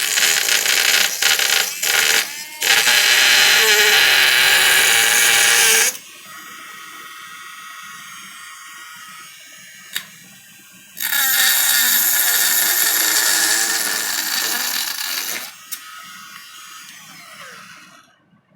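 Electric drill running at high speed in two long runs, with a few quick trigger pulses near the start and a quieter stretch between the runs. There is a sharp click about ten seconds in, and near the end the motor spins down with a falling whine.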